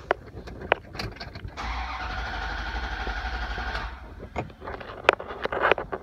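Chrysler-built vehicle's starter motor cranking the engine steadily for about two seconds without it catching, then stopping; a few clicks before and after. It will not start because the PCM's shorted 5-volt sensor reference circuit is no longer bypassed by the USB 5-volt feed.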